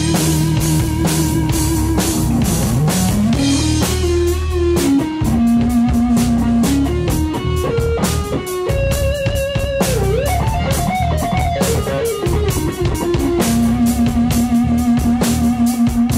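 Live rock band playing an instrumental passage: a lead on a Stratocaster-style electric guitar with long held, bending notes and vibrato, over drum kit and bass guitar.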